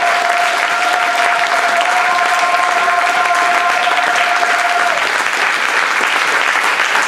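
Audience applauding, steady and dense, with one long held high note from someone in the crowd over it that stops about five seconds in.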